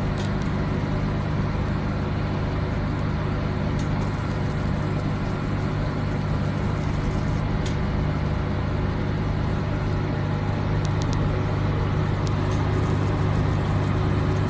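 CO2 laser treatment machine running with a steady low hum, with a few faint clicks now and then.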